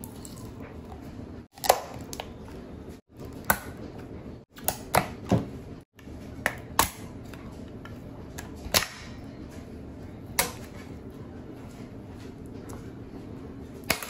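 Sharp plastic clicks and snaps, about eight or nine spread over the first ten seconds, as a flathead screwdriver pries a thin yellow plastic cover up off a scooter battery pack and the cover pops free and is peeled away. A steady low hum runs underneath.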